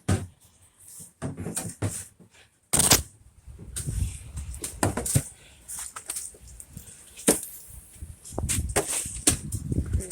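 Footsteps in wet, slushy snow: irregular scuffs and knocks, with low rumbling bumps on the handheld microphone between them.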